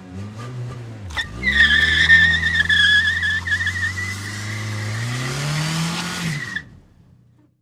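A car engine revving with a long, high tyre screech starting about a second in. The engine note climbs and drops again before the sound cuts off sharply near the end.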